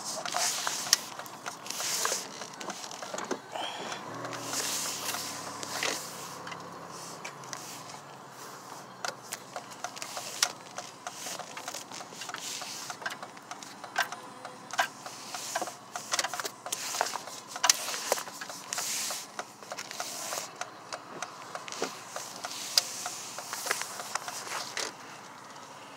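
Irregular rustling, scraping and clicking of a phone being handled and moved about, over the steady road noise inside a moving car.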